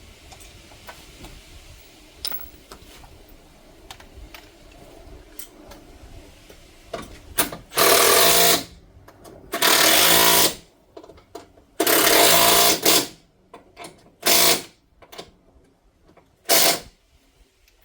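Impact wrench hammering at a nut in five bursts: three of about a second each, then two short blips. Faint clicks and knocks of tool handling come before the bursts.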